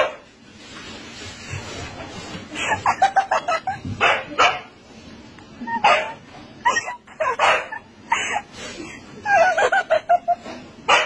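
Siberian husky barking in repeated short bursts, with a quick run of barks about two and a half seconds in.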